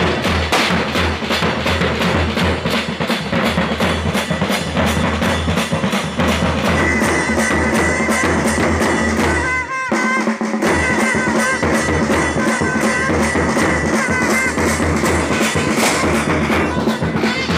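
Drum-led music: fast, steady drumbeats throughout, joined about seven seconds in by a high, wavering held tone, with a brief break near the middle.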